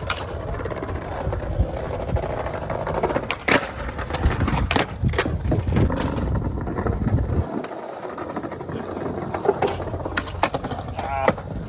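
Skateboard wheels rolling on pavement with a steady rumble, broken by several sharp clacks of the board hitting the ground; the rumble stops briefly about halfway through, as when the board leaves the ground.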